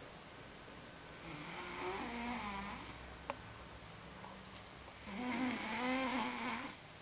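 Heavy snoring from a thick-necked sleeper: two long, wavering, pitched snores, each about a second and a half, with a quieter breath between them. A single sharp click falls between the two snores.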